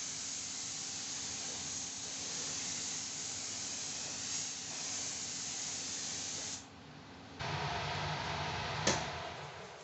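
Steady hiss of rushing air or spray, cutting off suddenly about six and a half seconds in. A short while later a lower, duller noise starts, with a single sharp click near the end.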